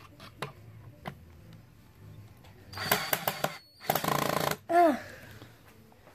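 Ryobi 18V cordless drill running in two short bursts, about three and four seconds in, as it drives into a wooden frame board.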